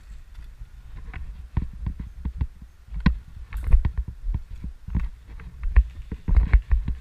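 Irregular knocks and clicks over a low rumble: the handling, gear-rattle and footstep noise of a camera carried by a moving airsoft player.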